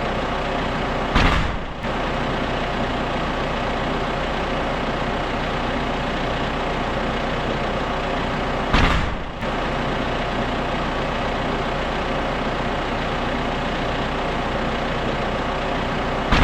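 John Deere 8300 tractor's diesel engine idling steadily. Two brief, louder bursts of noise cut across it, about a second in and again about nine seconds in.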